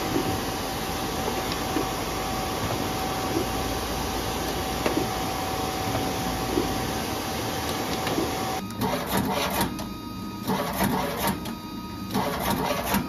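Production printer running steadily with a faint steady tone, feeding printed sheets out into its exit tray. Near the end a paper creasing machine takes over, running in short spells with clicks as it feeds and creases cut place cards.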